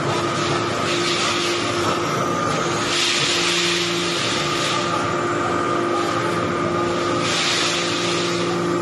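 Hydraulic briquetting press running: a steady machine hum and whine with a few held tones, and hissing that swells up three times for a second or two each.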